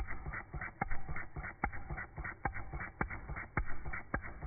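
Eachine ET5 miniature water-cooled OHV four-stroke petrol engine running, its exhaust popping unevenly about three times a second, with a dull, muffled tone.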